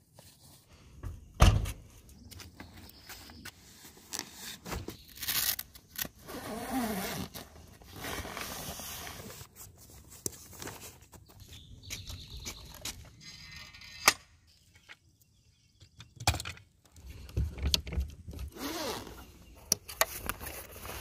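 Handling noise as an electric outboard is unpacked from its padded carry bag: straps and buckles being undone, fabric and zipper sliding, and the motor's plastic parts knocking and scraping. Irregular clicks and scrapes, a few short squeaks, and one sharp click about two-thirds of the way through.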